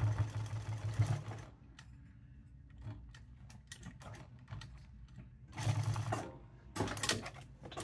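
Jack S5 industrial sewing machine stitching through a leather patch on a cap in short runs, started slowly after a restart: a run of stitching for about the first second and a half, a pause with small clicks as the cap is repositioned, then another short run around six seconds in and a brief burst near the end.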